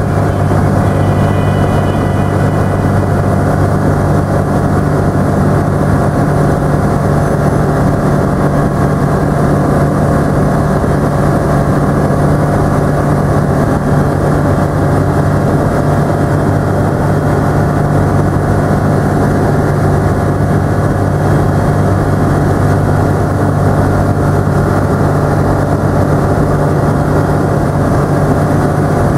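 ICP Savannah ultralight's piston engine and propeller running steadily in flight, a loud, even drone heard from inside the cockpit.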